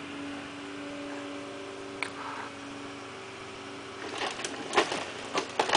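Excavator running with a steady hydraulic whine as its boom moves. From about four seconds in, sharp cracking and snapping of roofing and timber as the bucket breaks into the house's roof.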